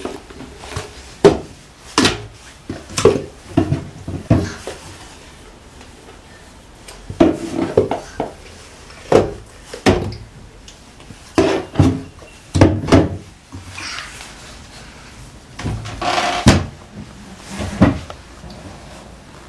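Irregular knocks and clacks of a toddler handling plastic jars and lids and opening and shutting the doors of a wooden cabinet, some strikes in quick clusters.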